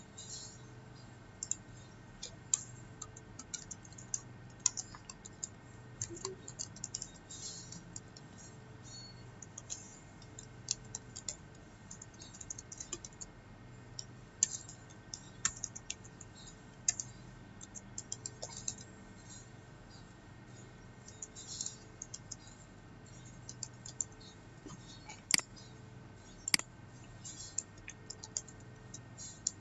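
Typing on a computer keyboard in irregular bursts of keystrokes, with two louder sharp clicks a little before the end, over a faint steady hum.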